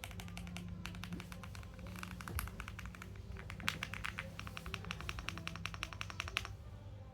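Lubed Gateron Brown tactile switches on a Lucky 65 v1 mechanical keyboard, typed on in fast runs of keystrokes that stop near the end.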